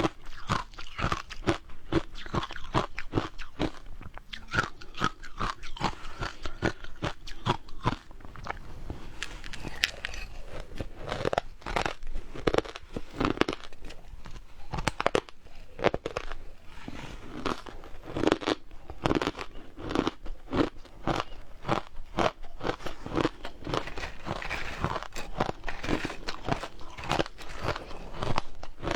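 Frozen matcha ice being bitten and chewed, with many sharp, irregular crunches several times a second as the ice cracks between the teeth.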